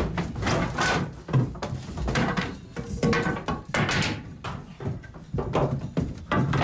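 Irregular wooden knocks and thuds as a floor hatch of wooden boards is pushed open and someone clambers out through it.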